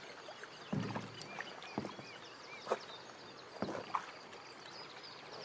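Thumps and knocks of plastic pet carriers holding wolf pups being handled and set down on wooden boards, five or so separate knocks. A run of short, high arching calls comes between them about two seconds in.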